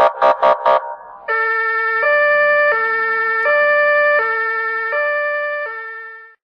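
Ambulance siren: a quick run of short beeps, then a two-tone hi-lo wail alternating between a low and a higher note about every three-quarters of a second, fading out near the end.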